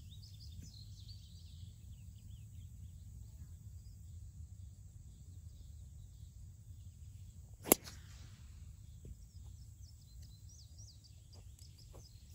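A golf driver striking the ball off the tee: one sharp, loud crack with a short ring, about two-thirds of the way through. Faint bird chirps and a low steady rumble lie underneath.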